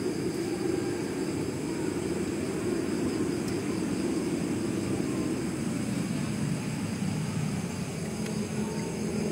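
A steady low mechanical rumble, with a low hum coming in near the end.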